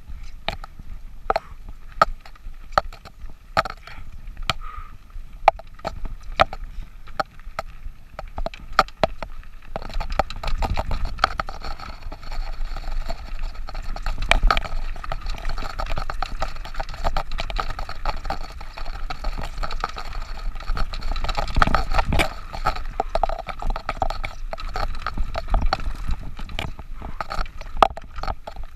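Mountain bike being ridden over rough ground, with rapid irregular clicks and rattles from the bike and its fittings. A steadier rushing noise with a low rumble joins about ten seconds in.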